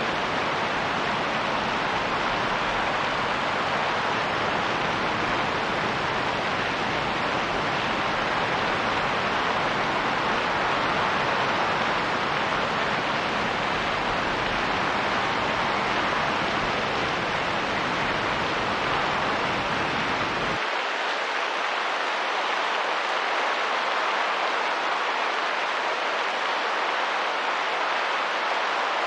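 Steady rain and wind as a constant, even hiss with no separate drops or gusts standing out. About two-thirds of the way through, the deep rumble underneath drops away suddenly, leaving the higher hiss.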